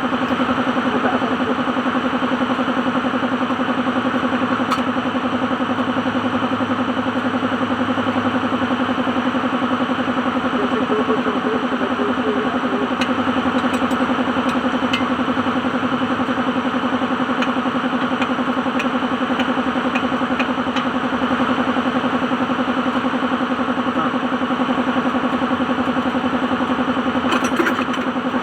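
Engine idling steadily, an even unbroken hum with a few faint ticks.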